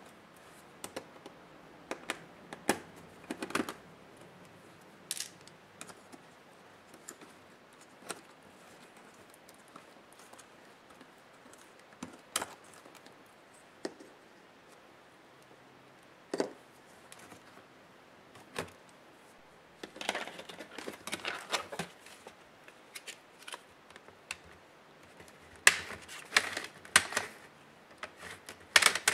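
Small sharp clicks and taps of plastic and metal laptop parts being handled and worked apart, scattered singly through most of the stretch, with busier runs of rapid clicking about two-thirds of the way in and again near the end.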